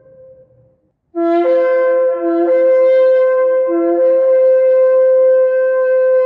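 Ram's-horn shofar: the end of one blast fades out, and after a short pause a new long, steady blast begins about a second in and is held to the end, its pitch stepping up just after it starts.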